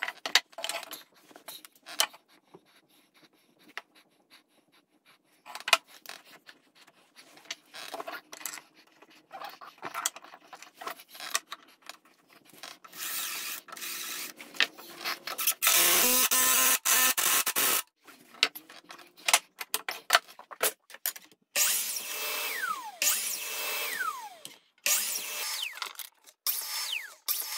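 DeWalt 20-volt cordless drill driving screws into wood in short runs, the longest about two seconds and stopping abruptly, between knocks and clatters of clamps and tools being handled.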